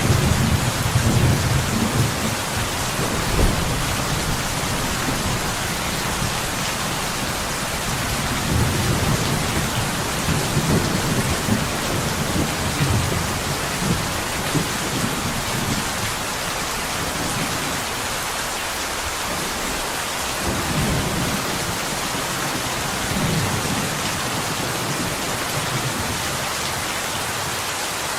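Steady rain falling on a window, with low rolling rumbles of thunder that swell and fade several times.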